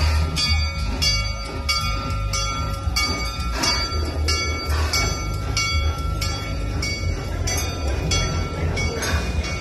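Locomotive bell ringing steadily, about three strikes a second, over the low rumble of the train.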